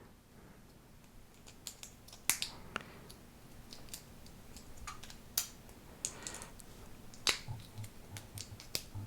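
Small plastic Lego bricks clicking as they are handled and pressed together: a handful of separate sharp clicks, irregularly spaced, with faint rustling between them.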